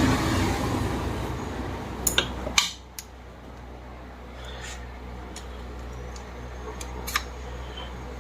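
Metal clicks and clinks of hand tools on a ceiling fan's bearing housing as a bearing puller is worked into place. A broad noise fades and cuts off about two and a half seconds in, with a cluster of sharp clicks around then and one more click near the end.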